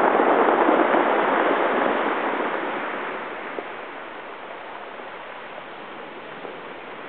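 Ocean surf washing up over a cobblestone beach, loud at first and dying away over about four seconds to a quieter steady wash.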